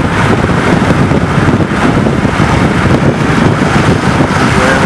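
Strong wind buffeting the microphone over the steady rumble of a moving vehicle.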